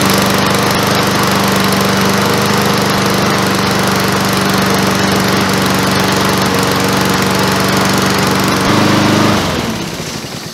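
Honda single-cylinder walk-behind mower engine running steadily just after a pull-start. About nine seconds in, its note shifts and it is shut off, winding down to a stop.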